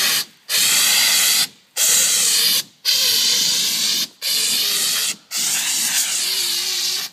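Dry-powder fire extinguisher discharging in a series of about six hissing blasts, each about a second long, with short breaks between them, the last one the longest.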